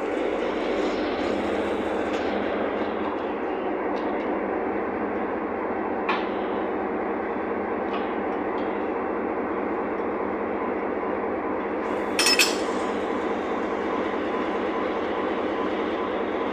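Diesel locomotive idling close by, a steady drone, with a couple of light metal clinks and one short, sharp noise about twelve seconds in as a worker handles the coupling gear between the vehicles.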